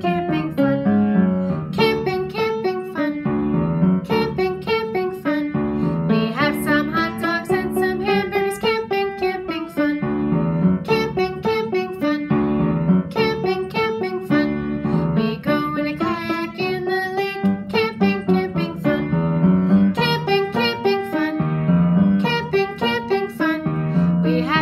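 A song: piano playing steady chords under a voice singing the melody.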